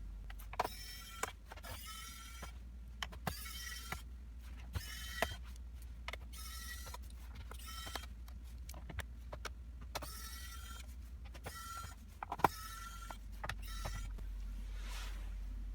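Small electric screwdriver whirring in repeated short spurts, its pitch rising slightly in each, taking out the laptop's case screws, with sharp clicks of screws and tools in between.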